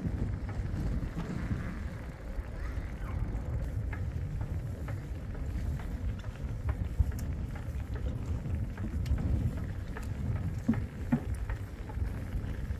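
Low, uneven rumble of wind buffeting the microphone, with a few faint clicks.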